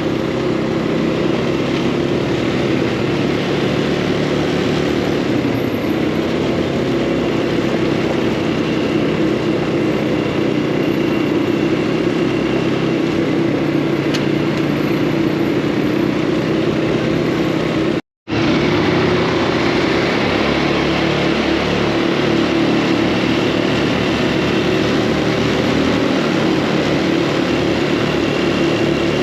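Off-road buggy engine running steadily under way, loud and close with a constant engine drone. The sound cuts out for a split second about eighteen seconds in, then resumes unchanged.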